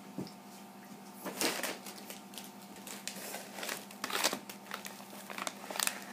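Plastic packaging crinkling and rustling in irregular handfuls, with the loudest bursts a little over a second in and around four seconds in.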